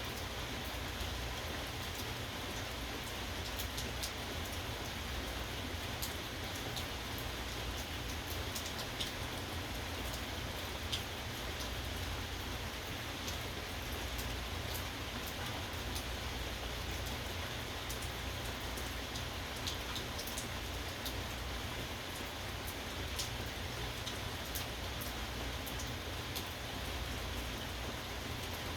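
Steady rainfall, with scattered individual drops ticking sharply on a nearby surface.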